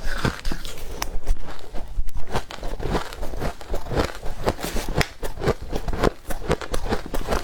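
Close-miked chewing of powdery freezer frost: rapid, irregular crunches, several a second.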